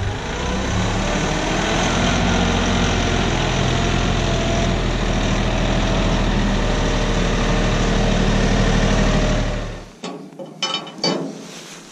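Tractor engine running steadily while its front loader carries a round hay bale. The engine sound stops abruptly near the end and a few faint clicks follow.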